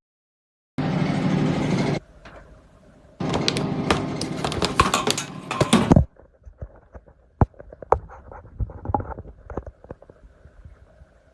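Cordless stick vacuum cleaner's motor runs for about a second and cuts off abruptly. It then runs again, louder, with a rapid clatter of clicks, and stops. Scattered clicks and knocks of the vacuum being handled follow.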